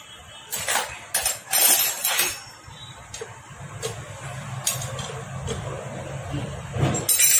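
Metal hand tools clinking and tapping against a Honda Activa engine's cylinder head and bolts as parts are fitted, with several sharp clinks. A low steady hum runs underneath from about three seconds in.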